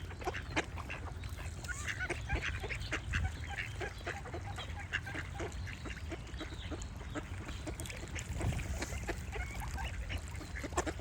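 Ducks quacking over and over in a loose, irregular series, with other birds singing in the background and a steady low rumble underneath.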